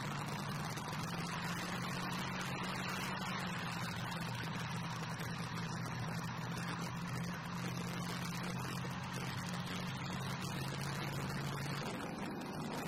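Tank running as it drives: a steady engine drone with a low hum that drops out about twelve seconds in.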